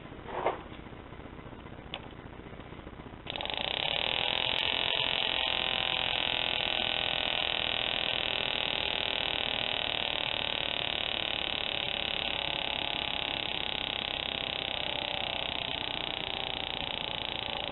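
Herkimer "OK" CO2 model motor, a tiny 0.11 cc motor run on a CO2 cartridge, starting suddenly about three seconds in and then running steadily at high speed, driving a three-blade propeller. A brief squeak and a faint click come before it starts.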